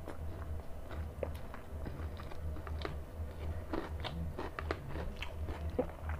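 A person eating rice and chicken curry by hand: close, wet chewing and mouth smacks in short irregular clicks, with the squish of rice being mixed on the plate, over a steady low hum.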